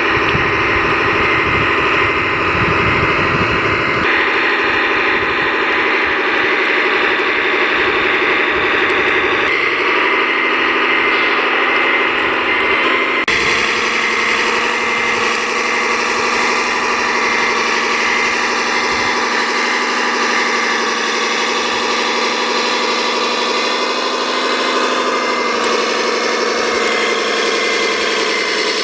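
Engine sound of RC construction machines, a wheel loader and an articulated dump truck, running steadily with a humming drone. The sound changes abruptly about 4, 10 and 13 seconds in as the shots change.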